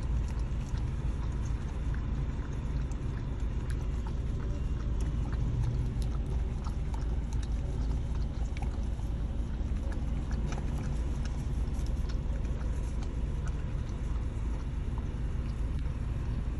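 Goldendoodle licking whipped cream from a small plastic cup, a run of quick, irregular wet licking clicks over a steady low car rumble.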